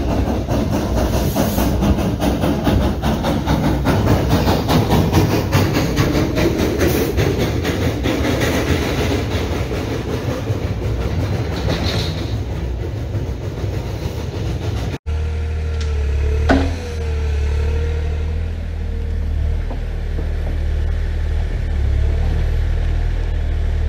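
Narrow-gauge steam locomotive close by, its steam hissing loudly. This cuts off suddenly about 15 s in, giving way to a Bobcat compact excavator's diesel engine running with a steady low hum and one sharp click.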